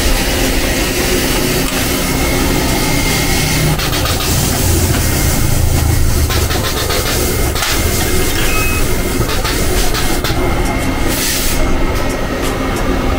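Inverter resistance spot welder working on a car's steel body panel: a steady hum and hiss, with a run of sharp crackles around the middle and more near the end.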